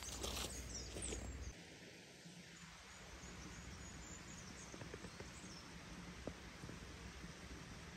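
A few footsteps on a hill path, then quiet open-air background: a faint even hiss with occasional soft ticks.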